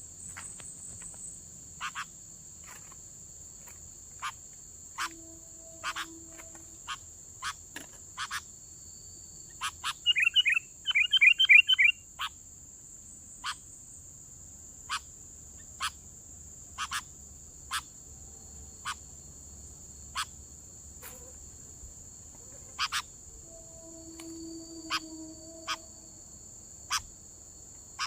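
Sooty-headed bulbuls calling: short sharp call notes every second or two, and a loud burst of rapid chattering calls about ten seconds in. A steady high buzz of insects runs underneath.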